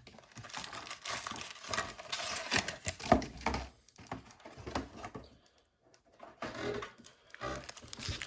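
Wrapped 2007-08 Upper Deck Series 2 hockey card packs crinkling and rustling as they are handled and taken out of the box, with small knocks as packs are set down in stacks. There is a short pause a little past halfway.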